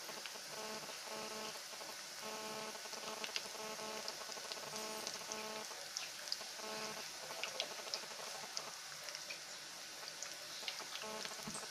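Semolina-coated chicken cutlets deep-frying in hot oil: a steady sizzle with scattered pops and crackles.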